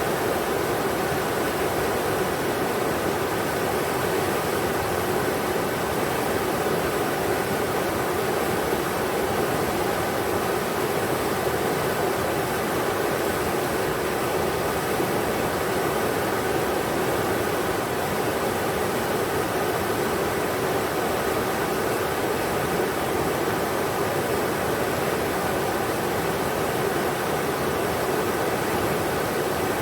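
River water rushing over rocks: a steady, unbroken roar of flowing water that holds even throughout.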